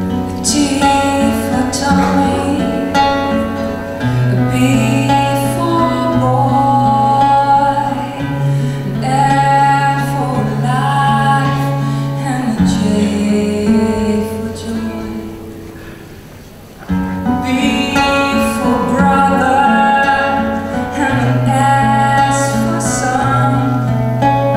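Instrumental song intro: plucked guitar over long held bass notes, with a melody line on top. About two-thirds of the way through the music fades down briefly, then starts up again.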